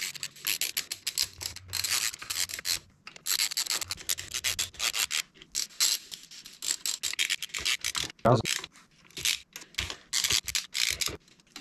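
Ratchet wrench tightening the bolts on an outboard's water pump housing, played back at eight times speed: a fast, dense run of rasping clicks.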